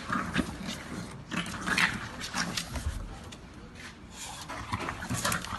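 An English bulldog and a small puppy playing, giving a run of short, irregular dog noises.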